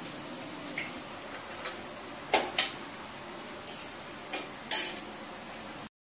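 Several light clinks and knocks of a stainless steel plate being handled and set down, over a steady hiss. The sound drops out briefly near the end.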